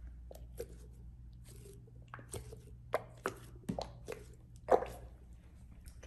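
A stress ball filled with small beads being squeezed and kneaded in the hands: irregular soft squishes and crackles, the loudest about four and a half seconds in.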